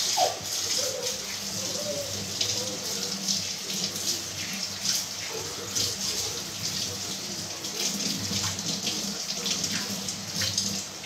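Kitchen tap running into a stainless-steel sink while dishes are washed by hand, with water splashing and scattered clinks and knocks of the dishes against the sink.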